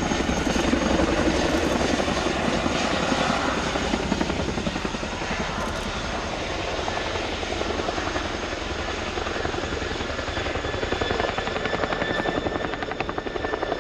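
RAF Boeing Chinook HC2 tandem-rotor helicopter in a two-wheel taxi, rolling on its rear wheels with the rotors under power. The rotors beat in a rapid, even blade slap, with a thin steady turbine whine from the two T55 turboshaft engines above it.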